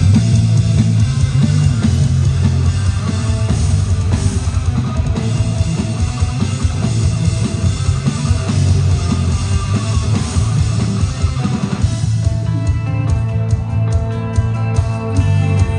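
Live rock band playing loud: electric guitar, bass guitar and drum kit together with a heavy, driving low end. About twelve seconds in, the music changes to ringing, held guitar notes over quick, even cymbal strokes.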